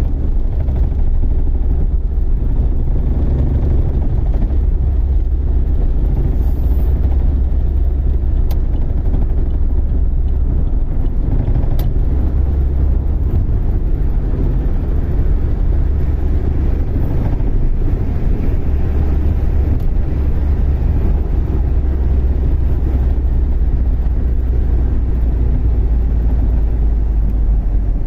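Steady low rumble of road noise inside the cabin of a 2005 Saturn Ion on the move: tyres, wind and the 2.2-litre four-cylinder engine running at road speed.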